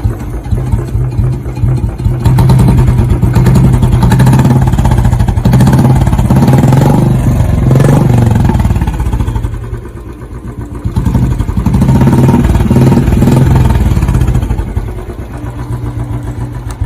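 Royal Enfield motorcycle running through an aftermarket K-Indori chrome exhaust silencer, revved up and held about two seconds in, dropping back briefly around ten seconds, revved again, then easing off toward idle near the end.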